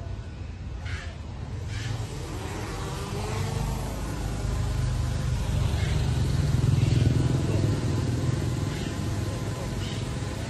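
DJI Mavic drone's motors and propellers running in flight: a steady low rumble with a faint whine that rises and falls in pitch, growing loudest around the middle.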